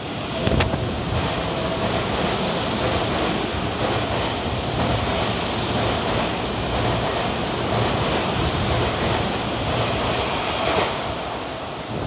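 Tobu 50070 series electric train passing through the station at speed without stopping: a steady rush of wheel and air noise for about ten seconds that eases off near the end. A repeating two-note tone sounds over it during the first few seconds.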